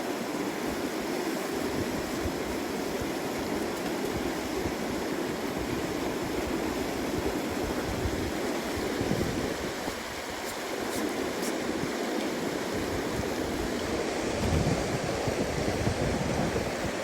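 Steady rushing of flowing water from a stream or river, an even, unbroken noise.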